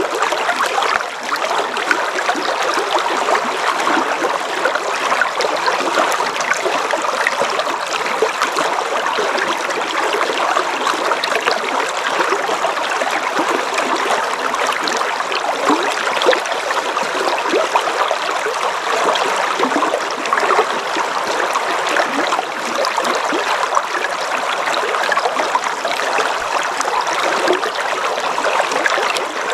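River water flowing steadily, a continuous rushing with constant small burbles and splashes.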